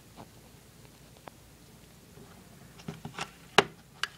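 A few short clicks and knocks of a Zippo lighter and its box being handled, the loudest about three and a half seconds in, after a quiet start.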